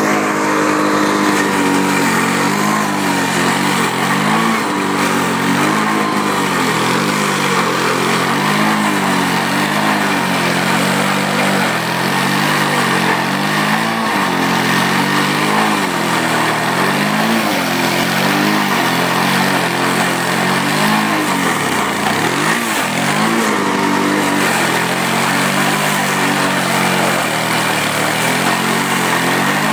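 Two-stroke Suzuki engine on a 17-inch Toro push mower running while cutting grass. Its pitch wavers up and down as the blade takes load, with one deeper dip about two-thirds of the way through.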